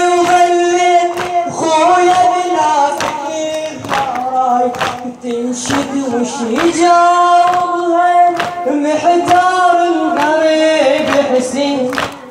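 A male radood sings a Shia shoor lament in long, held, wavering notes. Under the voice, sharp strikes keep a steady beat of about one a second, typical of mourners beating their chests (latm) in a shoor.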